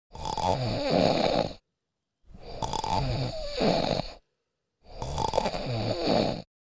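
A man snoring: three long snores, each about a second and a half, separated by complete silence.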